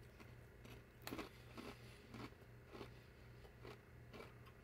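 A person chewing a mouthful of crunchy nacho-cheese corn twists, faint crunches about twice a second over a low steady hum.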